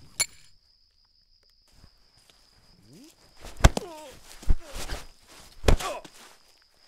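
Foley sound effects: a sharp click, then after a pause three heavy thuds about a second apart, mixed with pitched sounds that glide up and down.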